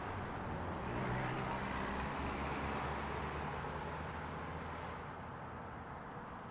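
Light road traffic at an intersection: a vehicle's engine and tyre noise swell about a second in and fade away over the last couple of seconds, over a steady background of traffic hiss.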